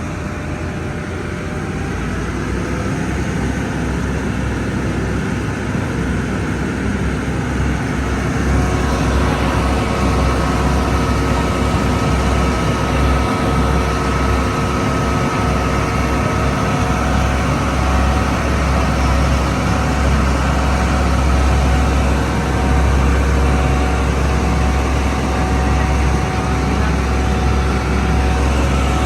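Tour boat's engine running steadily with a deep rumble, getting a little louder with a steady whine added from about eight seconds in as it picks up speed.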